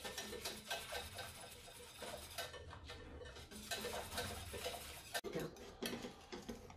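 Wire whisk beating thick chickpea-flour batter in a glass saucepan, its metal wires clicking quickly and repeatedly against the pot as the batter cooks and thickens.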